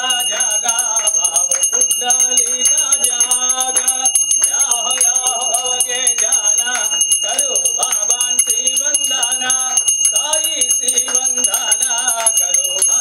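Hindu devotional singing over a steady drone, with a bell ringing continuously, as during an aarti.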